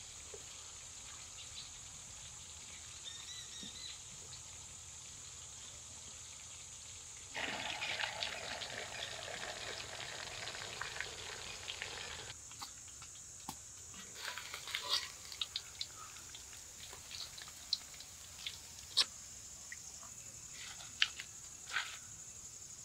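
Hot oil crackling as fish fry in a wok over a wood fire, for about five seconds in the middle. Before it there is a low steady hiss, and after it scattered light clicks and taps.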